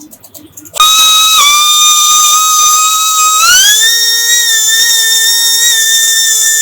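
Electric power tool's motor starting suddenly and running with a loud, high whine. About three seconds in, its pitch rises and then holds steady.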